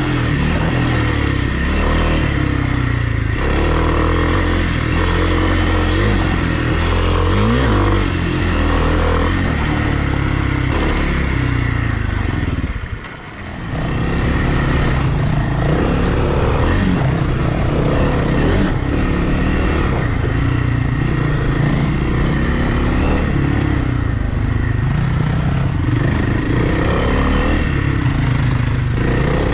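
A 2020 Kawasaki KLX300R dirt bike's single-cylinder four-stroke engine running under way, its revs rising and falling. Near the middle the engine sound drops away sharply for about a second, then picks back up.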